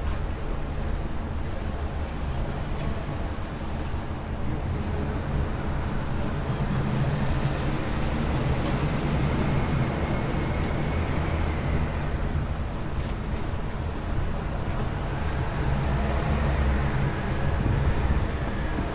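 City street traffic: a steady low rumble of passing motor vehicles, swelling as heavier vehicles go by about halfway through and again near the end.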